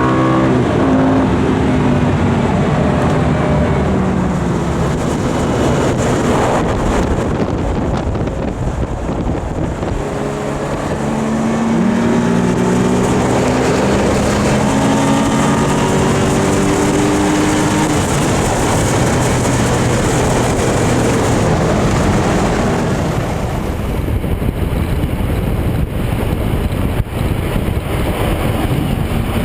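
Lamborghini Gallardo V10 engine running hard, its note climbing and dropping in several pulls as it accelerates and changes gear, with wind rushing over the microphone.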